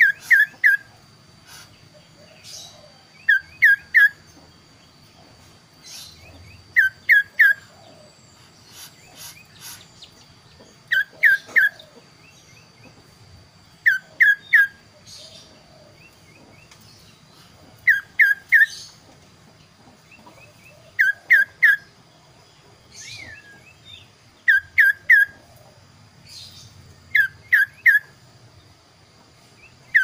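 Kaso-kaso songbird singing: a phrase of three quick, clear whistled notes repeated about every three to four seconds, with softer calls in between.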